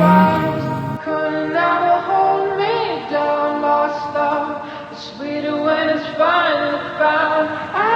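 Background music: a song with a woman's voice singing long, wavering notes.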